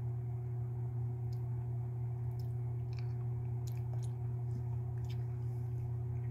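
A steady low hum throughout, with faint scattered mouth clicks from a hard candy being sucked and moved around against the teeth.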